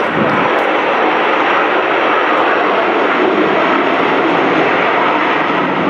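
Aermacchi MB-339 jet trainers flying past in a tight ten-ship formation, their jet engines making a loud, steady rushing noise.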